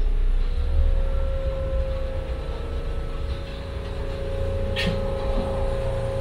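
Electric streetcar running, heard from inside the car: a steady low rumble of wheels on the rails under a steady electric motor hum. A short hiss comes about five seconds in.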